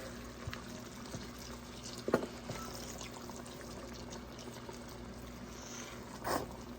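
Steady bubbling, watery noise of food cooking in a pan, with a couple of light clicks.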